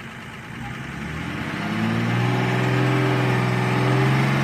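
Nissan Patrol's engine climbing in revs and loudness about a second in, then holding steady at the higher revs.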